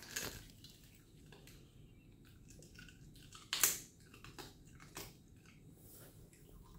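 Dog chewing food, with irregular crunches and mouth clicks, the loudest about three and a half seconds in.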